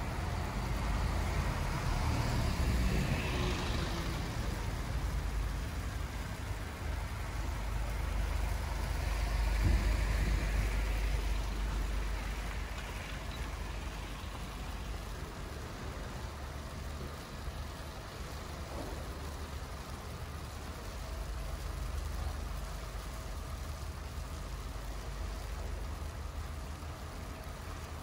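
City street traffic: motor vehicles driving past with a heavy low rumble. It is loudest about ten seconds in, then eases to a steadier background hum.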